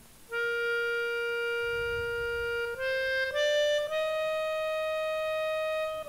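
Music: a free-reed instrument plays a slow melody of sustained notes. It enters about a third of a second in with one long note, then steps up through a few higher notes from about three seconds in.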